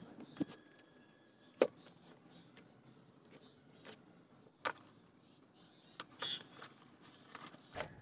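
A cardboard plant-shipping roll being opened by hand: about eight scattered sharp clicks, taps and brief rustles, the loudest at the very start and about a second and a half in.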